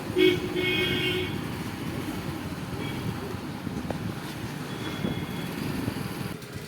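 Street traffic noise with a vehicle horn sounding for about a second near the start, and fainter short horn toots later.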